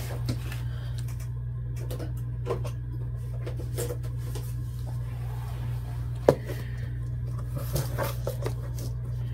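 Hands handling a paper craft tag on a cutting mat: light rustles and small taps over a steady low hum, with one sharp click about six seconds in.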